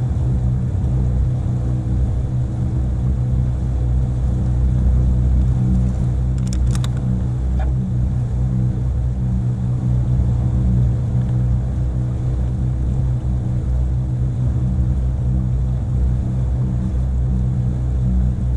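Motorboat engine running steadily, a deep even drone that holds without change, with a couple of brief clicks about six and a half seconds in.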